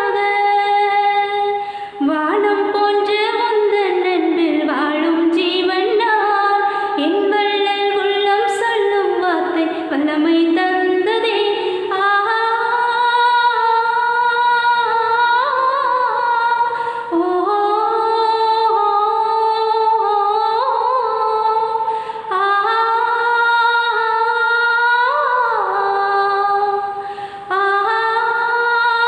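A woman singing solo and unaccompanied, a slow melody of held and gliding notes, with short breaths between phrases about two seconds in, near the middle and near the end.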